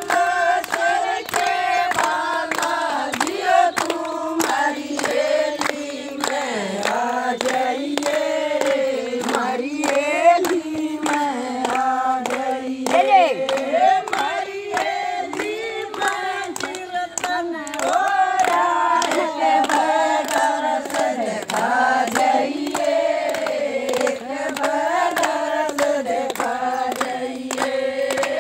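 A group of women singing a Hindu devotional bhajan together, unaccompanied, with steady rhythmic hand clapping keeping the beat.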